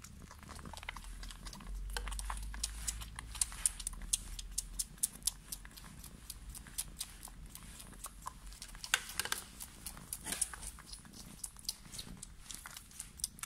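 Tabby kitten making a rapid, irregular run of small sharp clicks, several a second. A low rumble sits under them for about three seconds near the start.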